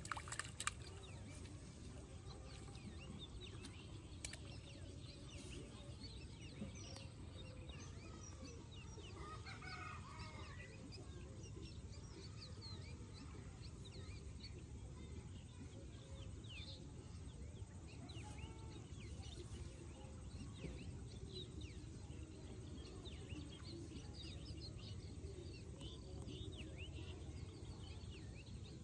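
Faint rural outdoor ambience: a low steady rumble with small birds chirping throughout, and a chicken calling about ten seconds in. A few sharp clicks right at the start.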